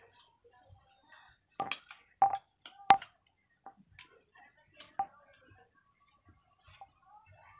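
Metal tools clicking and tapping during work on a jackhammer armature: scattered light clicks, with four sharper metallic clinks that ring briefly, the loudest about three seconds in.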